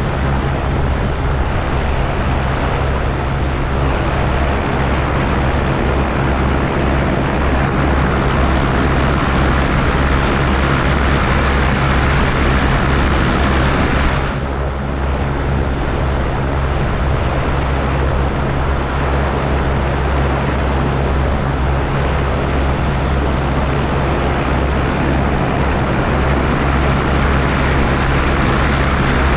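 Gyroplane engine and pusher propeller running steadily with a loud airflow hiss over it. The hiss drops away for a moment about halfway through.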